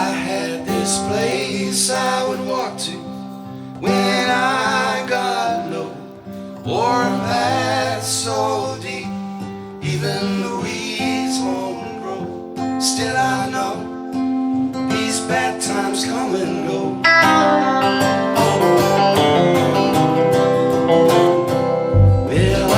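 Song with strummed acoustic guitar under sung vocal phrases. The arrangement gets fuller and louder about seventeen seconds in, and heavy low bass comes in near the end.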